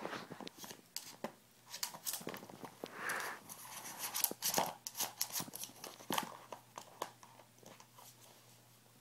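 A West Highland white terrier puppy pawing, nosing and mouthing at a round plastic cat track toy, giving a quick irregular run of plastic clicks, knocks and scrapes that dies away over the last couple of seconds.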